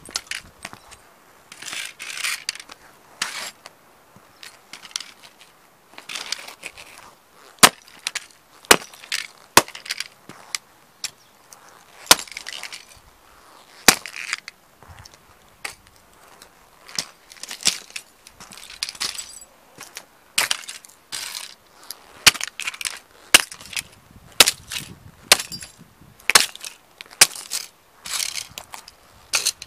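Hiking boots stomping on toy model cars on a concrete floor: irregular sharp cracks and snaps of the cars breaking, with scraping and crackling as the soles grind the pieces into the concrete.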